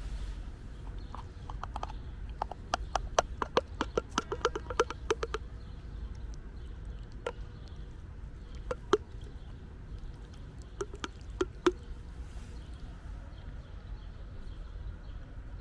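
A cat chewing food, with a quick run of crisp crunches over the first few seconds, then a few single crunches spread through the middle, over a low steady rumble.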